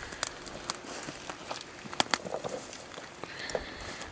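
Footsteps through dry, brushy weeds, with stems and twigs crackling and snapping underfoot in scattered sharp clicks.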